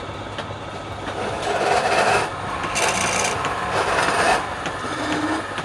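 Wood turning on a running lathe with a tool rasping against the spinning wood. The rasping swells louder twice, about two and four seconds in.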